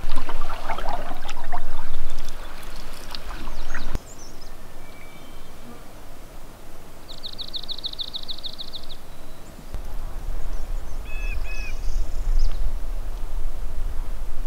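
Wild birds calling. A loud flurry of harsh calls comes in the first couple of seconds, a fast, even high trill about two seconds long comes midway, and a few short paired chirps follow it.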